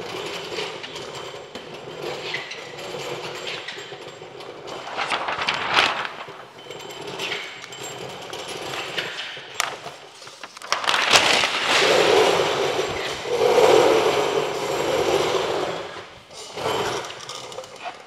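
A sheet of plastic paint protection film being handled against a wet truck bumper: rustling and crinkling of the film with some scraping, louder for several seconds in the second half.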